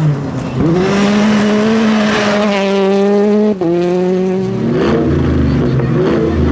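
Rally car engine at high revs: a brief lift-off at the start, then the note climbs back and holds flat out. About three and a half seconds in it drops sharply, and from about four and a half seconds a lower, choppier engine note runs on.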